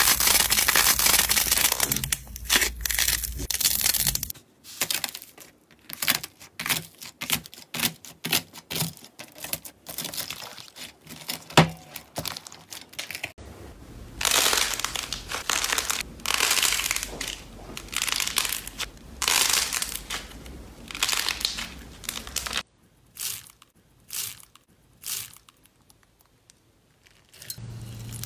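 Hands squeezing, pressing and pulling apart slime and squishy toys, one short clip after another: crackling, crinkling and tearing noises in irregular bursts. A stretch in the middle has sparser small clicks and pops.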